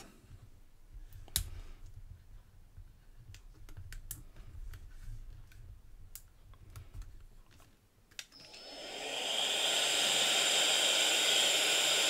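Faint clicks and rubbery handling as a small balloon is worked onto the nozzle of a KACNON VC43 handheld air duster. About eight seconds in, the duster clicks on and its small high-speed motor spins up over a second or so to a steady, high whine as it blows into the balloon.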